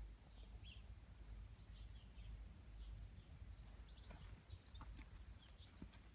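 Near silence: quiet garden ambience with faint, scattered bird chirps and a few soft clicks about four to five seconds in.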